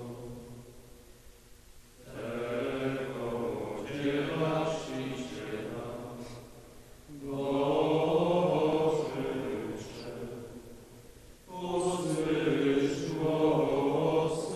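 Slow chant sung by men's voices, in three long held phrases with short pauses between them.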